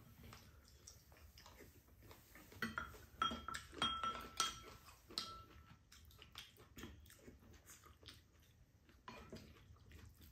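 Metal chopsticks and spoons clinking and scraping against ceramic bowls during a meal. There are scattered light clicks, and a cluster of louder, ringing clinks about three to five seconds in.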